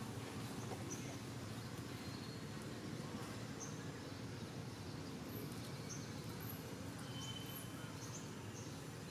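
Outdoor ambience of woodland: a steady low rumble, with short, faint, high bird chirps now and then and one brief thin whistle near the end.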